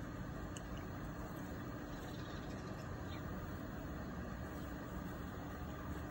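Steady low background rumble with a few faint, sharp ticks scattered through it.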